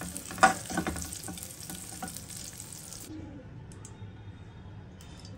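A metal spoon scraping and knocking against a nonstick kadai while scooping fried onion and spices out, over hot oil sizzling. The sizzle stops abruptly about three seconds in, leaving only a faint low hum.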